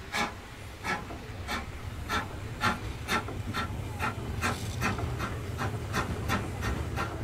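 Small narrow-gauge steam tank locomotive pulling away with its train. Its exhaust chuffs in even beats that quicken from about one and a half to about three a second as it gathers speed, over a low steady rumble.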